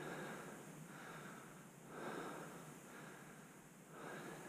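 A person breathing close to the microphone, slow in-and-out breaths, about one breath every two seconds.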